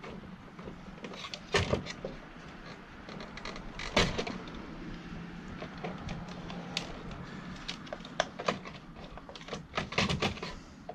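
Irregular clicks and knocks of hands working on a vacuum cleaner's motor assembly and plastic housing, the two loudest about one and a half and four seconds in, over a low steady hum.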